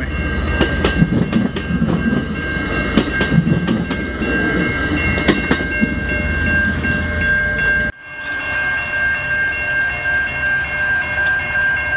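Commuter train passing over a level crossing: a low rumble with frequent sharp wheel clicks on the rail joints, while the crossing's warning bell rings steadily. About eight seconds in, the train rumble cuts off abruptly and the bell carries on alone.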